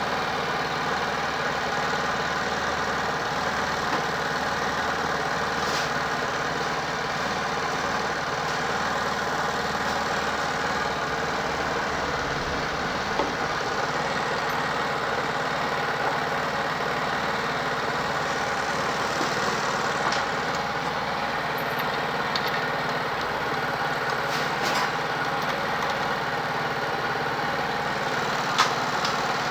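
Small engine idling steadily, with a few light clicks.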